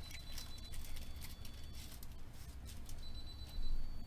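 Trading cards and foil pack wrapper being handled: light crinkles and clicks, with a soft thump about three and a half seconds in.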